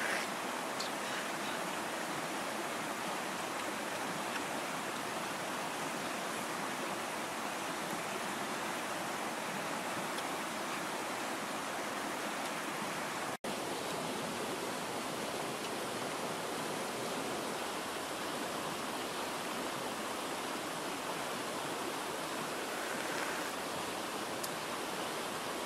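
River water rushing steadily, an even hiss of flowing water that breaks off for an instant about halfway through.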